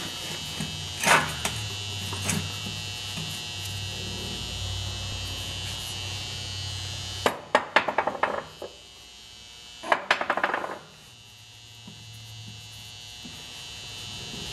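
Small powered screwdriver buzzing as it works on the screws of a sander's housing, with two bursts of rapid clicking about halfway through and a couple of single knocks near the start.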